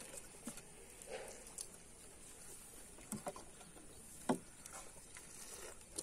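Samosas being eaten quickly: faint chewing and crunching, with a few sharp knocks, the loudest about four seconds in, from steel tumblers set down on the wooden table.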